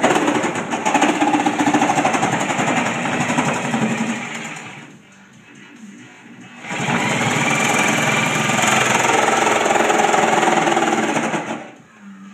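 Corded reciprocating saw cutting through a closet door panel, running in two bursts of about five seconds each with a short pause between.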